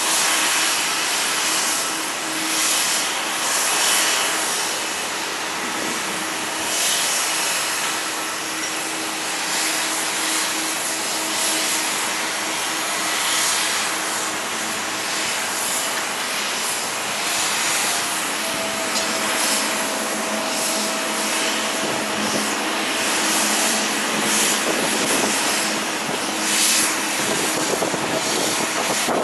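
Jet airliner engines running at an airport, heard as a steady rushing noise that swells and eases slightly, with a faint constant hum underneath.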